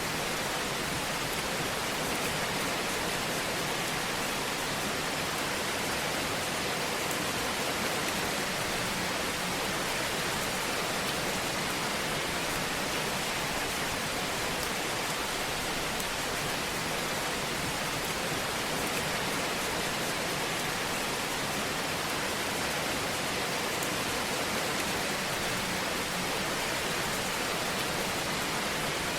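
Fire burning in a fireplace, heard as a steady, even hiss with no distinct loud crackles or pops.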